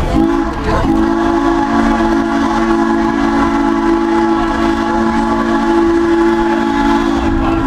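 Steam locomotive's chime whistle blowing a long, steady chord, with one short break just under a second in, over the low rumble of the rolling passenger coach.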